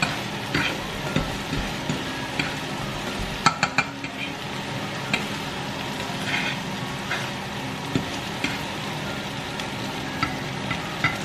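Scrambled eggs and two hotdogs sizzling in oil in a frying pan while a utensil stirs and scrapes the eggs. Scattered sharp taps of the utensil against the pan come through, with a quick run of three about three and a half seconds in.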